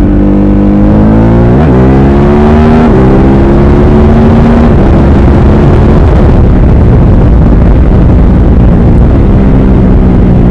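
Ducati Supersport S's 937 cc L-twin accelerating hard. Its note climbs and drops sharply twice in quick succession, as on quickshifter upshifts, then holds steady. Heavy wind rush on the microphone covers the engine for several seconds before it comes through again near the end.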